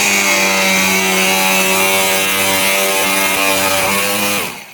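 Electric grinder running at full speed with a steady whine and the hiss of its disc abrading kraft paper. It slows briefly and stops just before the end.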